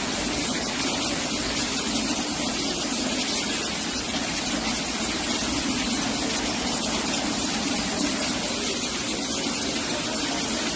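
Rainwater pouring through a leaking ceiling and splashing onto a flooded floor: a steady rushing hiss.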